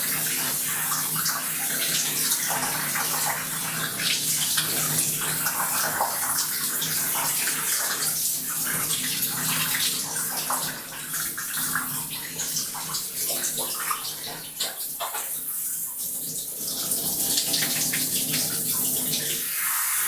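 Water from a shower running and splashing into a bathtub, steady and dense with small splashes. A low hum under it drops out near the end.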